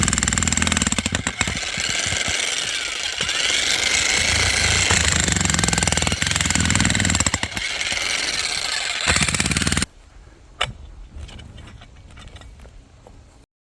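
Corded electric jackhammer chiselling into limestone, a steady rapid hammering that stops about ten seconds in. A single sharp knock and faint scraping follow.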